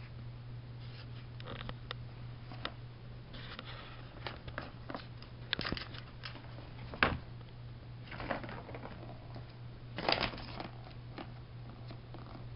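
Cat playing with a Turbo Track ball-in-track toy: scattered clicks and knocks of the plastic ball in its track, with a few short scratchy bursts. The sharpest knock comes about seven seconds in, over a steady low hum.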